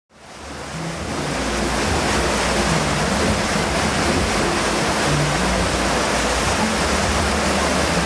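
Steady rushing water from a fairground river-rafting ride's water channel and chute, fading in at the start, with a low hum underneath.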